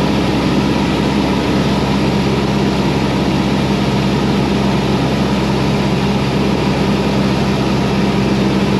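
Cessna 172's piston engine and propeller droning steadily in flight, heard through the pilot's headset feed as a constant hum with a fixed low tone.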